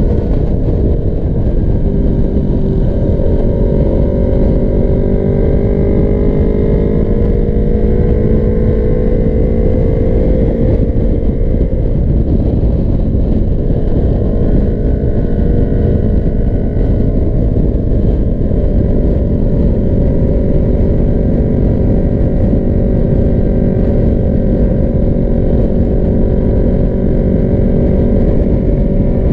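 Motorcycle engine running at a steady highway cruise, heard from the rider's seat, its pitch creeping up slightly in the first ten seconds, under a heavy rush of wind and road noise on the microphone.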